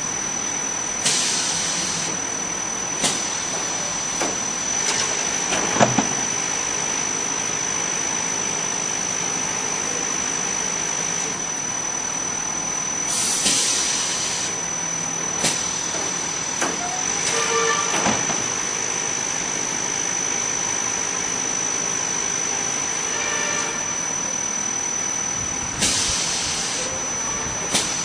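Spiral paper core making machine running: a steady mechanical din with a high whine. Three short hissing bursts come about twelve seconds apart, with a few sharp knocks between them.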